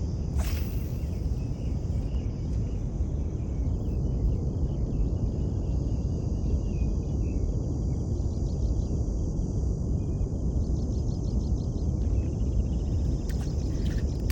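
Outdoor ambience: a steady low rumble with insects chirping faintly over a steady high insect drone.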